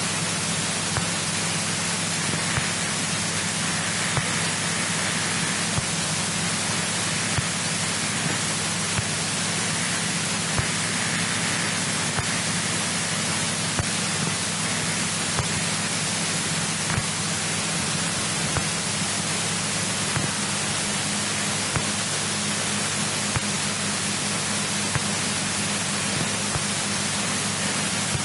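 Steady hiss of airband radio static with a low hum underneath and occasional faint clicks.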